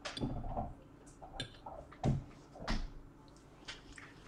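Close-miked eating sounds: a fork picking at pasta on a plate, and chewing and mouth noises, with a few short clicks and smacks, the loudest about two seconds in and again a moment later.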